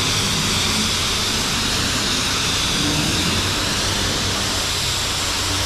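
A self-serve car wash's high-pressure rinse wand spraying water onto a car's roof and windows: a steady hiss of the water jet over a low, even hum.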